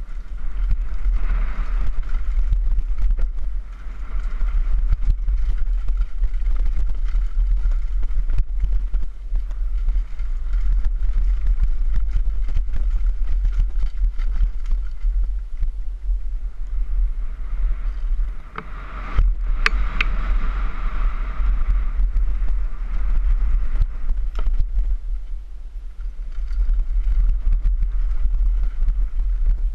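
Wind buffeting a helmet-mounted camera microphone during a fast downhill mountain-bike descent, over a constant clatter of the bike's tyres, chain and frame on a rough dirt trail.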